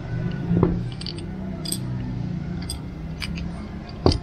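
Short plastic clicks and taps as a Bafang e-bike brake lever is taken apart and its push-button brake-cutoff sensor is pried out of the housing. There are half a dozen scattered clicks, and the loudest knock comes near the end. A steady low hum runs underneath.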